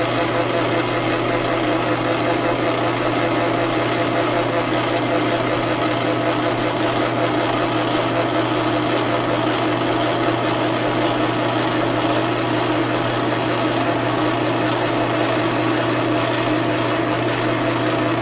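Lathe running steadily as it winds wire into a heater coil, an even mechanical hum with no change in speed.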